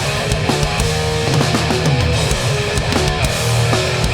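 Hardcore punk band playing live, an instrumental stretch of distorted electric guitars, bass and steady drum hits with no vocals.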